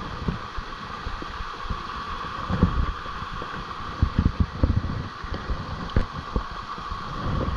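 Steady rush of water under a waterfall, with irregular low thumps and sloshing close to the microphone.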